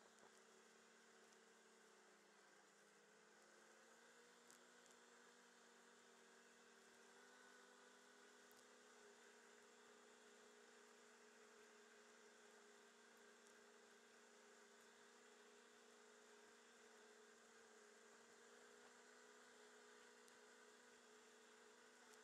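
Very faint, steady drone of a snowmobile engine running at speed, its pitch shifting slightly a few times.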